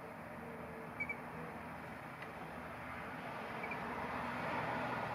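Road traffic noise swelling as a vehicle approaches, louder over the last couple of seconds, with a couple of short faint bird chirps about a second in and again later.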